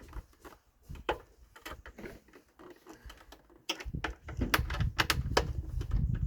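A screwdriver tightening the screws in the plastic front cover of a BriXcell smart charger: sparse, irregular small clicks and taps. From about two-thirds of the way in come louder clicks and knocks of handling.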